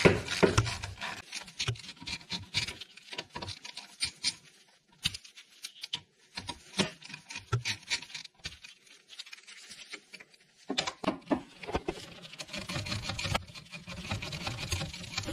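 Irregular metallic clicks and scraping of a 7 mm Allen tool being fitted to and turned in a brake caliper's guide bolts as they are undone.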